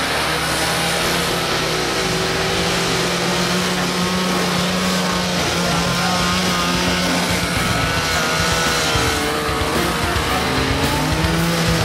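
Vintage snowmobile engine running as the sled rides across snow, its pitch rising and falling a few times as the throttle changes.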